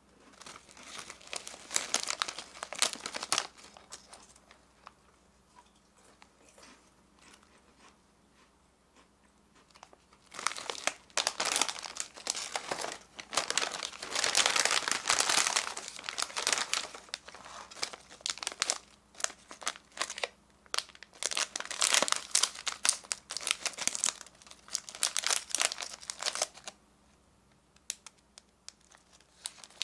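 Plastic snack wrappers crinkling as hands handle and rummage through a pile of small candy packets. It comes in irregular bursts: a short spell early, a quieter stretch, a long busy run through the middle, and a lull near the end.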